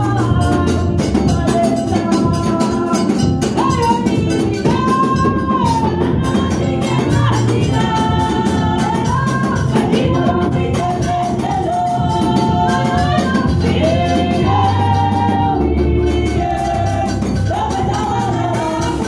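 Women's voices singing a lively gospel song together into microphones, over a steady beat with bass and percussion, amplified through loudspeakers.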